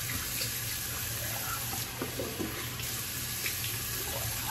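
Bathroom tap running steadily into a sink, with water splashing as a face is rinsed off by hand.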